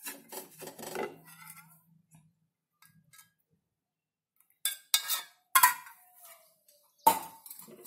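Wooden spatula stirring and scraping roasted gram flour mixed with sugar syrup against the bottom of a pan. A run of stirring for about a second and a half, a pause, then three sharp scrapes in the second half.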